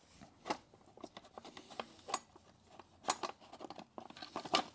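Plastic battery tray of an E-Ride Pro electric dirt bike being pushed and shifted by hand inside the frame: scattered faint clicks, creaks and scrapes of plastic.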